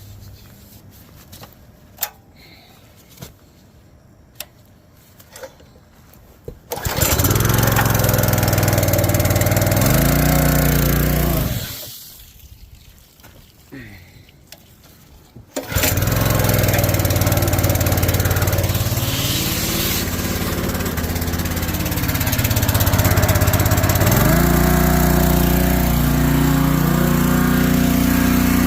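Small gasoline engine of a pressure washer used as a sewer jetter, started with a sudden surge and running for about four seconds before winding down and stopping, then started again and left running, its note rising about three-quarters of the way through. Light clicks and handling noises come before the first start.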